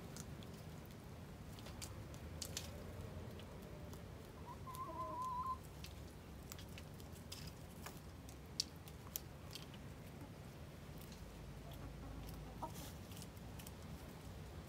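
Hens clucking softly as they feed, with one wavering, drawn-out call about five seconds in and scattered light ticks of pecking.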